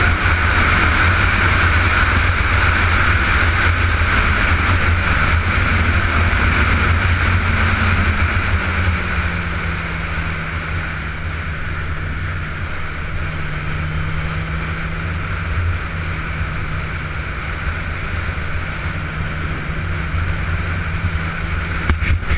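Sport motorcycle on the move, heard from the rider's camera: wind rush over a steady engine drone. About eight seconds in the engine note falls and the rush eases as the bike slows, then it runs on at a steady lower pitch.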